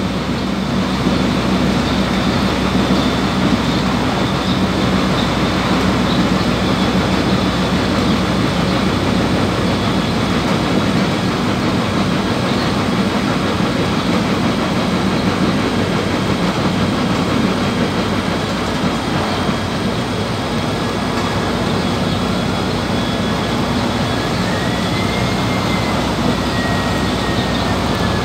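A PAZ 320414-14 city bus under way, heard from inside: a steady engine drone with road and body rumble. The deepest rumble thins out for several seconds midway, and a faint high whine glides up and back down near the end.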